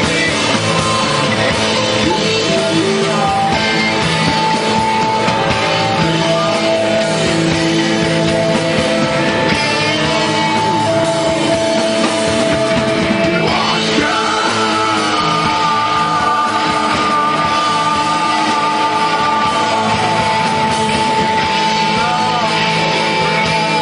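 Rock band playing live and loud: electric guitars, with long held and bending lead notes on top.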